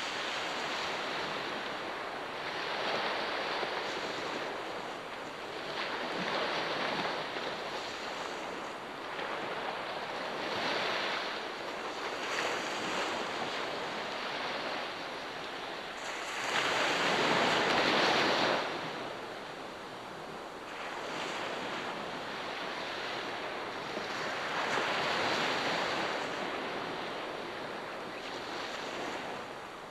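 Sea waves breaking and washing up on a shore, swelling and fading every few seconds, with the biggest wave breaking about halfway through.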